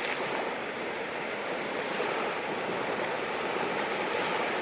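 Steady wash of sea surf, an even rushing noise with no distinct breaks.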